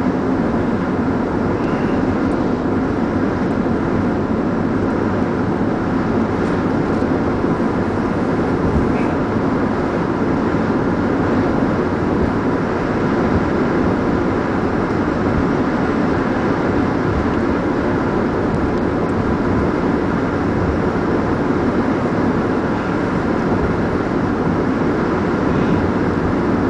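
Steady drone of a car cruising at highway speed on a paved road, heard from inside the cabin: tyre and engine noise holding an even level throughout.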